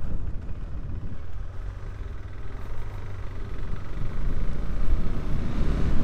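Wind buffeting and motorcycle riding noise picked up by a lavalier mic in a motorcycle helmet, on a KTM 390 Adventure at about 50 km/h with the visor open. It is a low, rumbling wind noise that grows louder over the second half.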